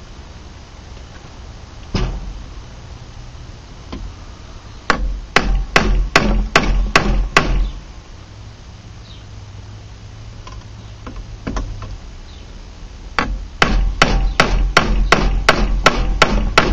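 Hammer blows on a knife's metal handle pins, upsetting them against a steel vise to lock the glued slabs tight. There are two quick runs of sharp metallic strikes, about three a second, with a pause between them and a few single knocks.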